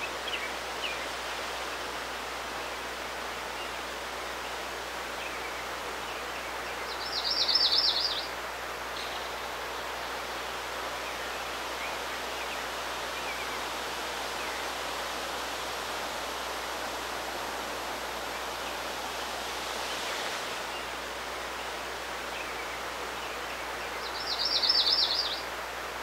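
Steady outdoor ambience with an even hiss of moving air or water. A songbird gives a short, rapid high trill about a second long twice, once about a third of the way in and again near the end.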